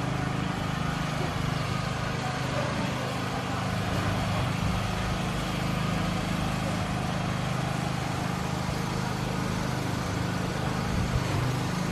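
A steady low mechanical hum, holding several fixed pitches, over an even wash of open-air street noise.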